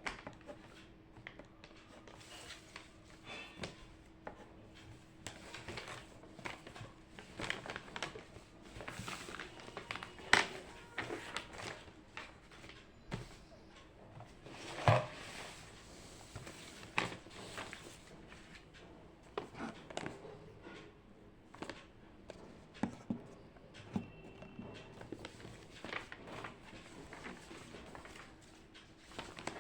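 Irregular small taps, clicks and rustles of someone working at a desk, such as writing and handling paper, with two sharper knocks about ten and fifteen seconds in, over a faint steady hum.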